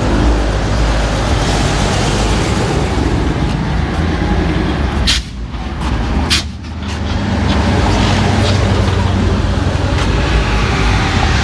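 Classic cars rolling slowly past close by, their engines running as a steady low drone. A little past the middle the engine noise dips and two brief sharp sounds stand out.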